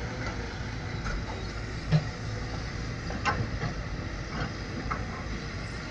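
Heavy machinery's diesel engine running steadily, with scattered metallic clanks and knocks, the loudest about two seconds in.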